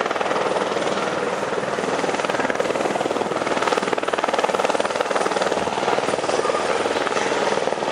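Aerospatiale AS-355N Twin Ecureuil twin-turbine helicopter flying low and close, its rotor giving a rapid, steady chop over the rush of its engines.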